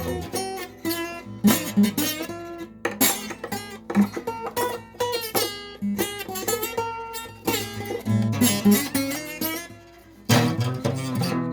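A three-string guitar with used, mismatched strings being strummed and picked, out of tune. The playing pauses briefly near the end, then starts again.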